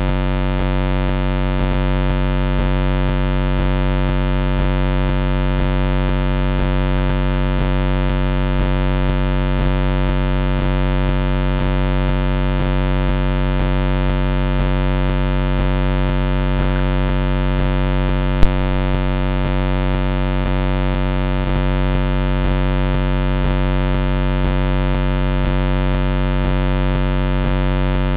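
Steady electrical hum with many evenly spaced overtones, the trail camera's own electronic noise on its sound track; one sharp click about eighteen seconds in.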